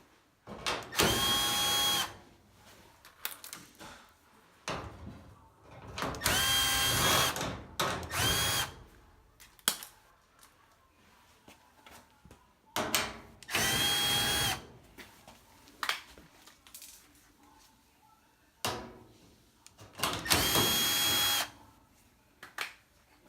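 Power drill/driver run in five short bursts of a second or so each, with a steady whine that rises quickly at each start. Sharp clicks and knocks come in between.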